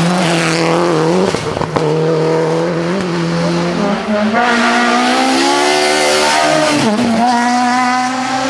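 Rally car engines at full throttle, revving up through the gears. The pitch climbs, then drops sharply at each upshift or lift, with tyres squealing as the cars slide through the tight bend.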